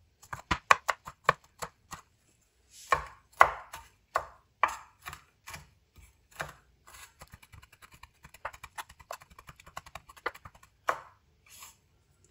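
Knife chopping green chillies on a wooden cutting board. A quick run of strokes comes first, then slower, louder chops a few seconds in, then fast light mincing taps, and a few single chops near the end.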